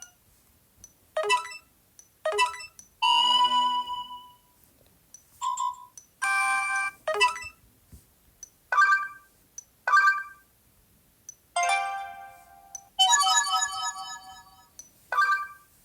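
Sony Xperia phone notification tones previewed one after another: about ten short electronic chimes and jingles, each a second or two at most, with brief quiet gaps between them.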